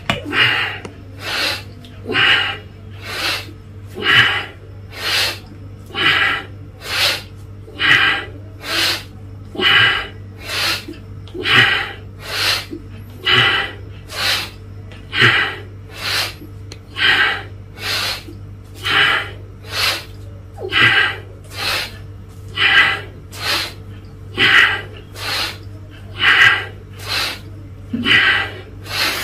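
A man's sharp, forceful breaths, about one a second, keeping an even rhythm in time with repeated squats.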